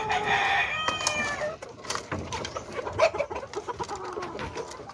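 A chicken gives one long drawn-out call lasting about a second and a half, followed by soft clucking and a scatter of short taps from chickens feeding.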